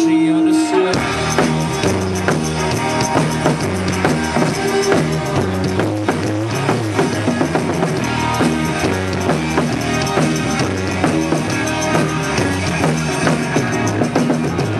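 Live rock band playing through the stage PA: a drum kit keeping a steady beat, with guitar and a moving bass line.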